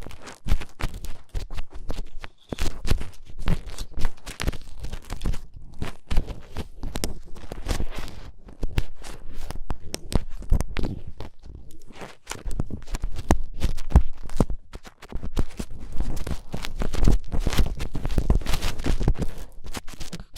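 Close-up ASMR scratching, rubbing and tapping on a daruma, heard as an irregular, continuous stream of crackly scrapes and clicks with dull thuds underneath.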